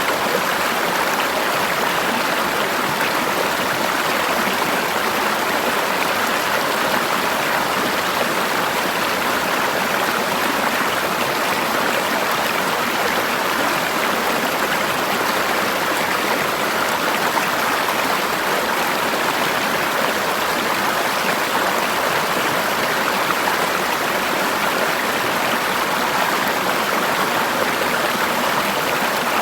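Forest river flowing over rocks, a steady rushing and splashing of water that holds even throughout.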